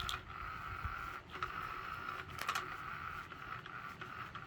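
Small electric motor of an old motorized floor cat toy running steadily on medium speed, giving a constant whine, with a few sharp clicks, the loudest about two and a half seconds in.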